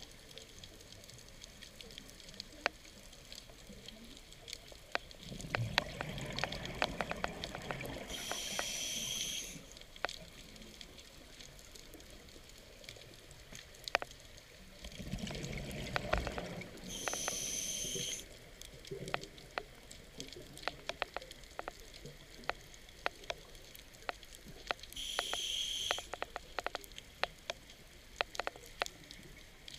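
Scuba diver breathing through a regulator underwater: three breath cycles about eight or nine seconds apart, each a rumble of exhaled bubbles followed by a short hiss of the inhale. Throughout, a steady crackle of sharp clicks.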